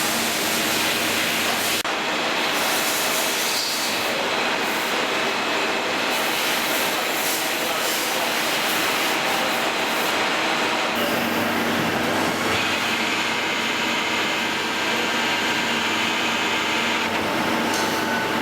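Goodway GA-2600M CNC lathe machining a part: spindle and live tooling running with steady cutting noise and several steady tones. The sound changes about eleven seconds in, and a high whine comes in soon after and stops a few seconds before the end.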